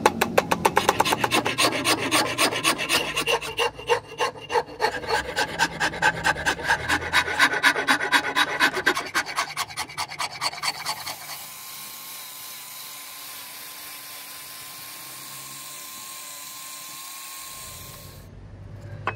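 Hand rasp filing a rosewood axe handle in quick, even strokes, several a second. About eleven seconds in the strokes stop and a quieter steady hiss takes over.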